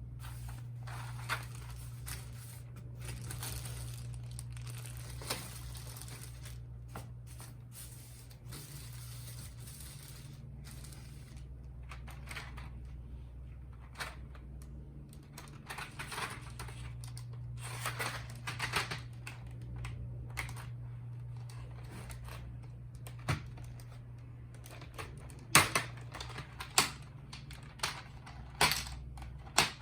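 Mechanical keyboard being unboxed: packaging crinkling and rustling with scattered light taps, then several loud, separate clicks in the last few seconds, over a steady low hum.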